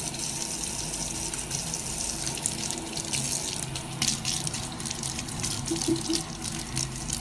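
Running water splashing, with a steady hiss and many small splashes.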